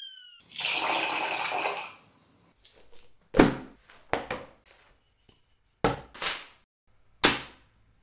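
Water poured from a glass into a stainless-steel bowl, splashing for about a second and a half, just after the tail of a falling whistle tone. Then about six sharp knocks and slaps, in uneven pairs, from a wooden block and an open book.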